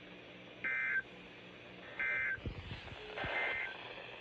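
Three short bursts of NOAA Weather Radio SAME digital data tones, each a brief two-tone electronic chirp, about a second apart: the End of Message code that closes the weekly test.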